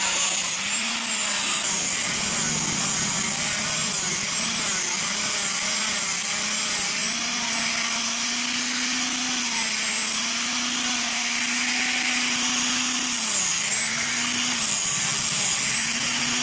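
Electric angle grinder with a sanding disc running steadily while grinding down a wooden board, its motor whine dipping in pitch briefly a few times as the disc is pressed into the wood.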